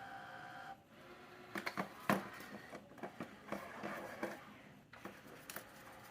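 Robot vacuum cleaner: its small motor's steady whine cuts off under a second in, followed by a run of clicks and knocks, the loudest about two seconds in.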